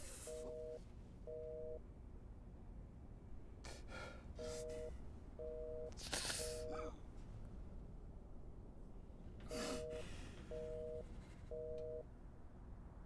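Telephone busy signal: a two-tone beep pulsing in groups of three, repeating with short pauses, which means the line is engaged and the call is not getting through. Between the beeps a man gasps and sighs, loudest about six seconds in.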